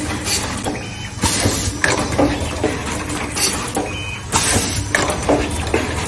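Automatic cable cutting, stripping and pre-insulated ring-terminal crimping machine running: several short bursts of hissing air from its pneumatic actions, the longest about half a second, over the steady hum of its vibratory bowl feeder, with light mechanical clicks.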